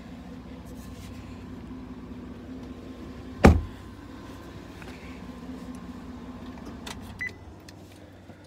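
A truck door slammed shut once, a single loud thump about three and a half seconds in, over a steady low hum, with a lighter click near the end.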